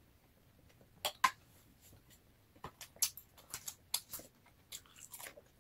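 Metal fork tapping and scraping against a ceramic salad plate, a string of short light clicks: two about a second in, then a busier run from about halfway on.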